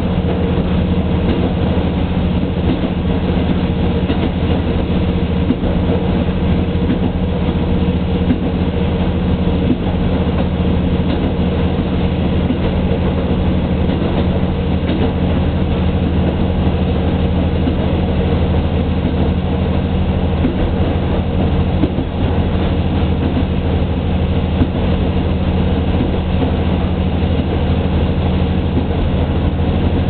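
Diesel train heard from inside a passenger car: a steady low engine drone over the rumble of wheels on the rails, with a few scattered wheel clicks.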